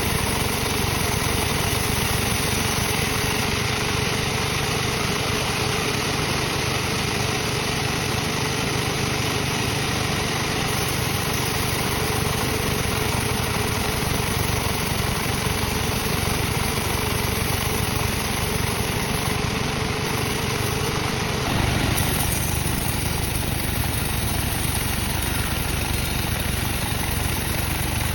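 Sawmill machinery running steadily with an engine-like drone while teak is sawn. About 22 seconds in the tone changes, as a steady mid-pitched hum drops out.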